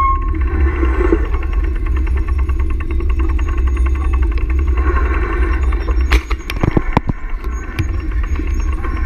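Wind buffeting the microphone of a handlebar-mounted action camera on a moving bicycle, a heavy fluttering rumble, with a few sharp knocks about two thirds of the way through as the camera is jolted.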